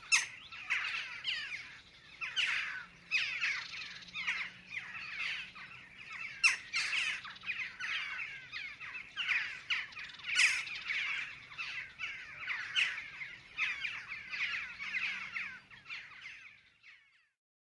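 Western jackdaws calling: a quick run of short, sharp, downward-falling calls that overlap at times. The calls fade out near the end.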